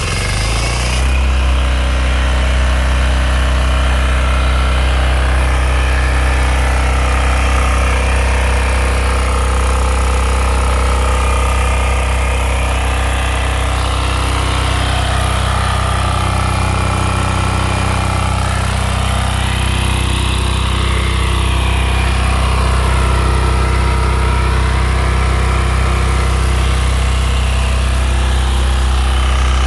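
Diesel engine of a fuel-transfer pump unit running steadily, freshly started, driving its 150-gallon-per-minute pump with water running through it.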